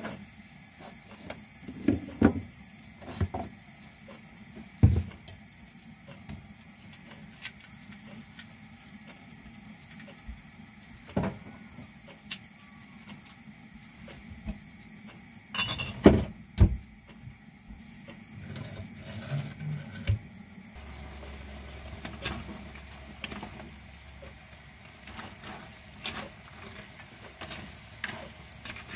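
Yabbies cooking in a covered wok on a gas burner: a low steady hiss with scattered sharp pops and clicks, the loudest a cluster about sixteen seconds in. Near the end the lid is off and a spatula is stirring the yabbies in the pan.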